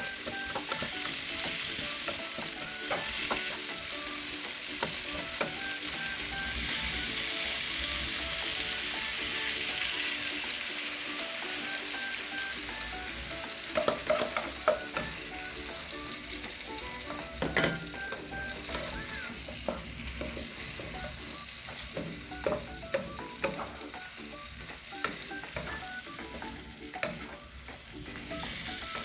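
Bitter gourd and egg sizzling in a frying pan while being stirred, with a steady hiss and scattered clicks and knocks of the utensil against the pan.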